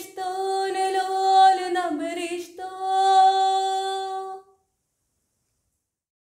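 A girl singing a Syriac liturgical hymn solo and unaccompanied, in long held notes; the final note is sustained and cuts off about four and a half seconds in.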